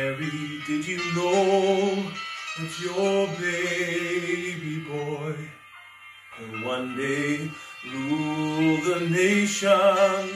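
Solo male voice singing a slow ballad in sustained phrases, with a wavering vibrato on a long held note near the end and short breaths between phrases.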